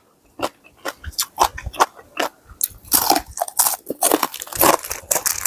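A person biting and chewing crunchy food, a quick irregular run of crunches that gets denser and louder about halfway through.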